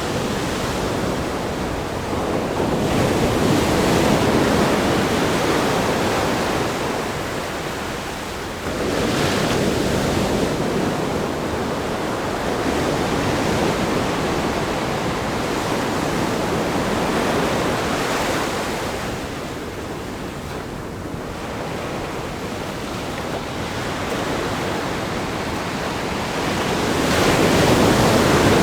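Ocean waves breaking on a rock groin and washing up a sandy beach, a continuous surf rush that swells and eases as successive waves come in, loudest a few seconds in, around ten seconds in and near the end.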